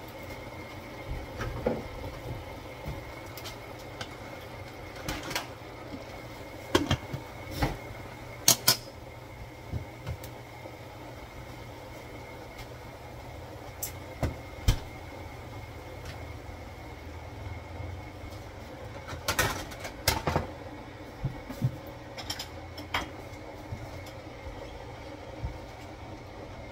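Cookware being handled over a steady hum: scattered clinks and knocks of pot lids, a stainless steel bowl and a wooden spoon, the loudest a third of the way in and again past two-thirds.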